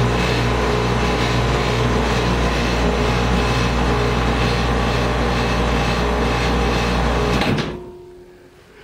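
Electric motor of a homemade cable-driven stair lift running steadily with a hum while it lowers the carriage down the stairs. It cuts off abruptly near the end as the carriage reaches the bottom.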